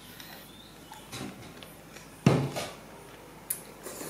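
Eating at a table: noodle slurping and clinks of chopsticks and bowls, with one louder thump about two seconds in and a sharp click shortly before the end.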